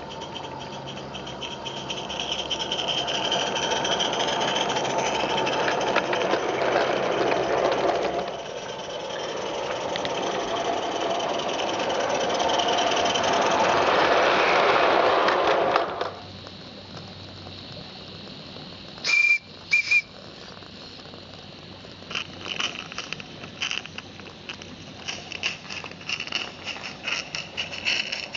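Live-steam Merlin Locomotive Works Major 0-6-0 garden-railway locomotive running with its wagons: a loud rushing hiss as the train passes close, which cuts off suddenly, then two short toots of its whistle, followed by light clicking of the wheels on the track.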